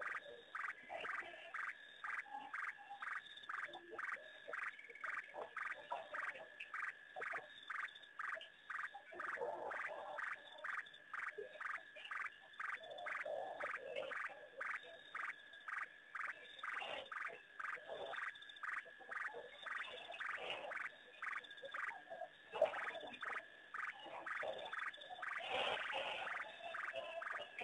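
Frogs calling at night: one call at a steady pitch pulses about twice a second without a break, with irregular lower croaks mixed in. A single sharp tick stands out about three-quarters of the way through.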